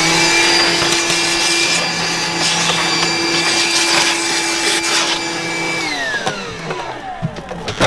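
Small handheld electric vacuum cleaner switched on, its motor whining steadily at a constant pitch. About six seconds in it is switched off and winds down, the whine falling in pitch until it stops.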